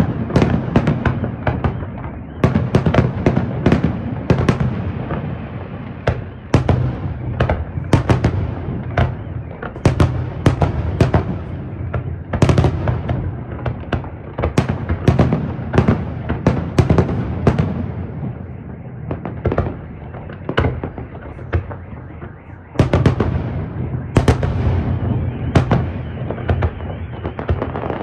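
Aerial fireworks display: a dense barrage of sharp shell bursts, several a second, over a continuous low rumble. It eases somewhat past the middle and builds again near the end.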